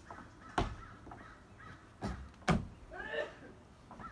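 Two sharp thumps of feet stamping on a wooden deck during xingyi footwork, about two seconds apart, with an animal calling repeatedly in the background.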